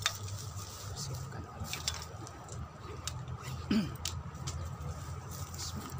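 Rustling and scattered light knocks as someone moves about in dry grass and handles tools from a bag, over a steady low rumble. A short, louder low sound comes about two-thirds of the way through.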